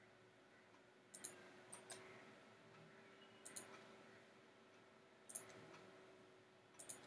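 Faint computer mouse clicks, about five times, several in quick double pairs, over near-silent room tone with a faint steady hum.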